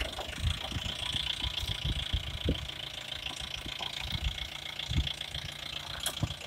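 Engine of a 4x4 jeep running at low revs as it crawls slowly over rocks and loose dirt, an uneven low rumble with occasional bumps.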